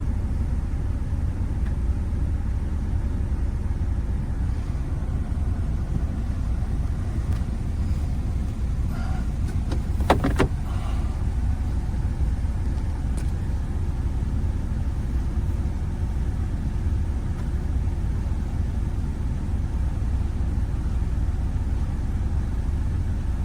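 Steady low rumble of a car's running engine heard from inside the cabin, with a couple of sharp clicks about ten seconds in.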